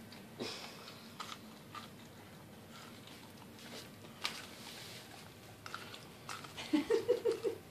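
West Highland White Terrier biting and chewing kernels off a corn cob held for her: a run of small, irregular crunches and clicks. Near the end a person's voice comes in briefly as a few quick pulses.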